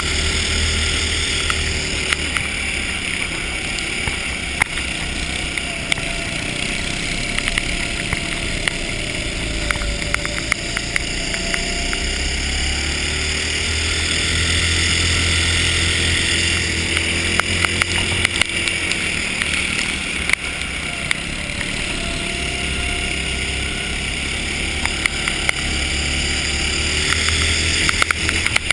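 Onboard sound of an ice go-kart's small engine running hard, its pitch rising and falling slowly as the throttle changes, with frequent sharp clicks and knocks throughout.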